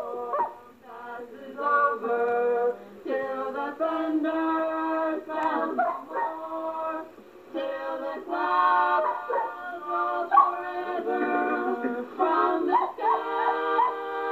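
Siblings singing together in harmony, women's and a man's voices holding sung notes. A pet dog joins in now and then with howls. It is an old, several-times-copied cassette recording, dull with no high end.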